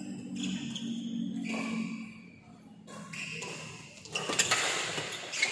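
Badminton play: short squeaks of court shoes, then a few sharp racket strikes on the shuttlecock in the last second and a half.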